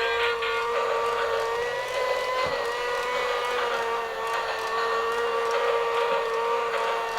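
Battery-powered Thomas Bump n Go Bubble Train toy running, its small electric motor and gears giving a steady whine.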